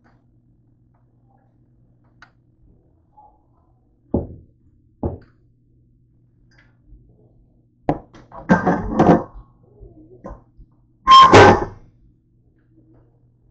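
Kitchen things being handled: two short thunks, then a run of knocks and clatter, with the loudest clatter about two seconds before the end.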